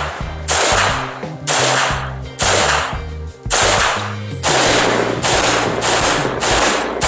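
Rifle gunfire: loud shots roughly a second apart, each with a short echo, over background music with a bass line.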